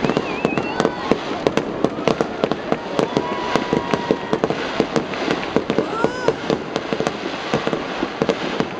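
Aerial fireworks shells bursting overhead: a rapid, unbroken run of sharp bangs and crackles, several a second.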